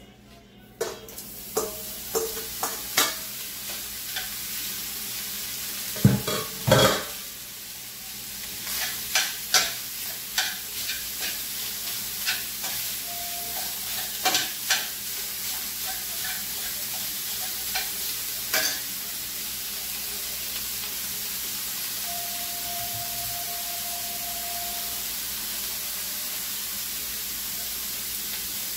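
Minced beef sizzling as it hits a hot stainless steel frying pan and is stirred, with metal spoon and bowl clinking and scraping against the pan. Two loud knocks come about six seconds in. The knocking stops after about twenty seconds, leaving a steady sizzle.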